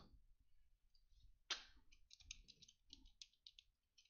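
Faint typing on a computer keyboard: quick runs of light key clicks, with one sharper click about one and a half seconds in.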